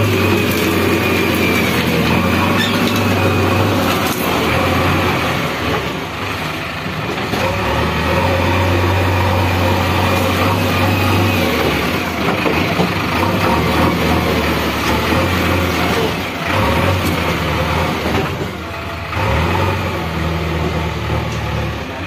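JCB backhoe loader's diesel engine running under load, its note dipping and swelling several times as the machine works.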